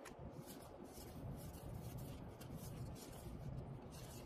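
Trading cards being leafed through by hand: faint, soft rustling and light ticks of card sliding over card.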